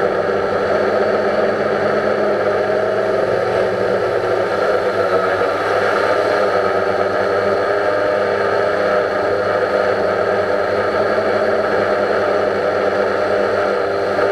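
Quadcopter drone's motors and propellers whirring steadily, picked up close by the drone's own on-board camera.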